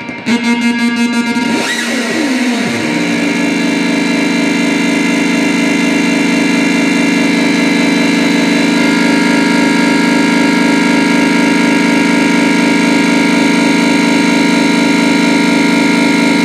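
Homemade skull-shaped noise synthesizer (Poor Yorick) being played by turning its knobs. About two seconds in, its pitch sweeps downward, then it settles into a steady, dense electronic drone of many held tones with a fast flutter running through it.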